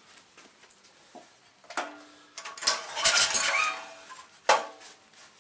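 Metal tools and small metal parts clinking and clattering as they are handled, with a busy run of ringing clinks in the middle and a single sharp metallic clank near the end.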